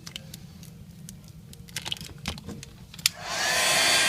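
A few light clicks of a card being worked under the tablet's glass, then about three seconds in a handheld hot-air blower switches on and runs with a steady rush of air and a faint whine. It is blowing heat onto the screen to soften the adhesive.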